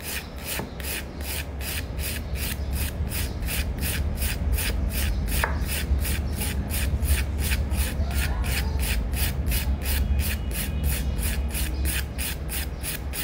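A hand nail file rasping back and forth over a gel nail, shaping its curve, in even strokes of about three to four a second, over a steady low hum.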